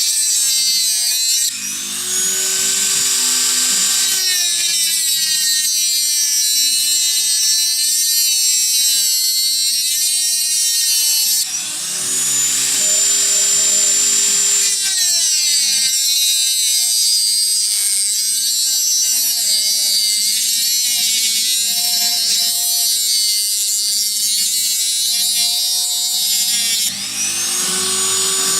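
High-speed electric power tool running with a whine that wavers in pitch as it works. It briefly drops out and spins back up with a rising whine three times: a little after the start, about 11 seconds in, and near the end.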